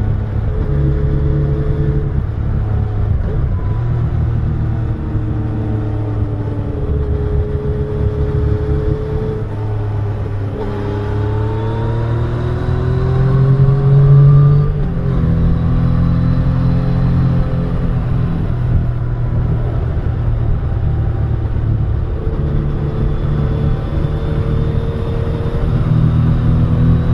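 Yamaha Tracer 900's three-cylinder engine running under way, its pitch rising and falling with the throttle and gear changes. About halfway through it revs up and gets loudest, then the pitch drops suddenly as it shifts up.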